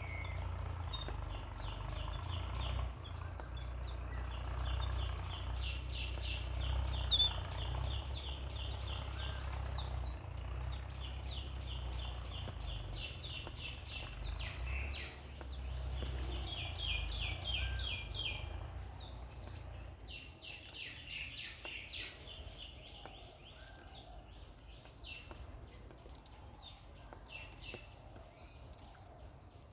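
Outdoor animal chirping: short, high chirps in rapid trains of several a second, coming in bursts and fading out about two-thirds through, over a steady high-pitched insect-like buzz. A low rumble underneath stops about two-thirds through.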